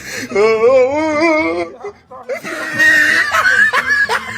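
A person laughing loudly in a high, wavering voice, then a shrill squealing laugh after a short pause.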